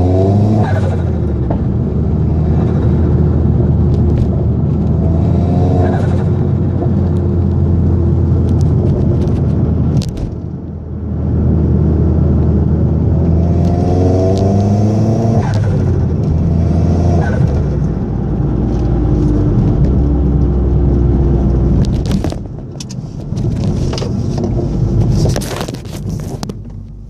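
Vauxhall Astra VXR's turbocharged four-cylinder engine with a Cobra exhaust, accelerating hard through the gears. The revs climb in repeated pulls and drop at each change, with turbo flutter on lift-off. The engine eases off about ten seconds in and again near twenty-two seconds.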